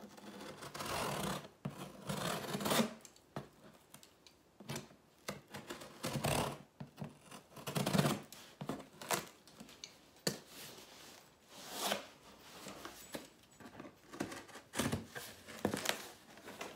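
Scissors cutting through the tape and cardboard of a shipping box, in irregular short snips and scrapes.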